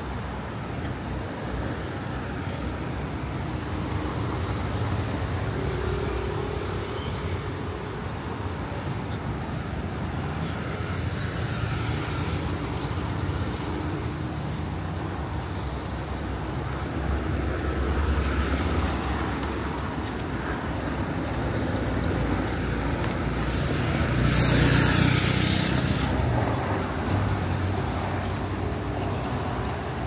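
Steady street traffic with several vehicles passing, the loudest one about 25 seconds in.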